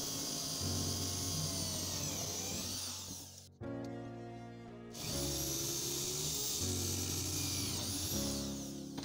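Electric drill boring through a rusty metal strip: its high motor whine sags as the bit bites, stops about three and a half seconds in, and starts again about a second and a half later. Background music plays under it.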